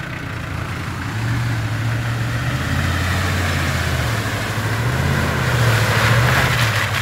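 Jeep Grand Cherokee engine running under load as the off-roader crawls up a deep muddy rut, getting louder about a second in and loudest near the end as it comes close.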